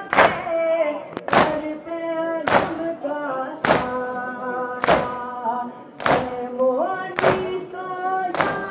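Mourners doing matam: a crowd of men chanting a nauha together and beating their chests in unison, with a sharp slap about once a second.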